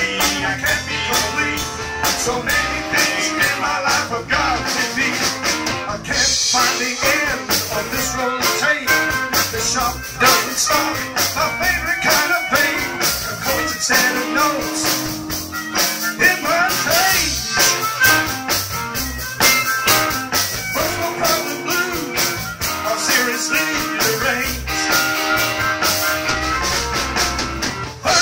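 Live blues band playing: a man singing over electric guitars, bass guitar and drum kit, with a harmonica played in the second half.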